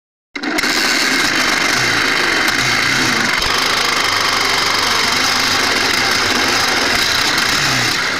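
An engine running steadily at a constant speed, cutting in abruptly a moment after the start.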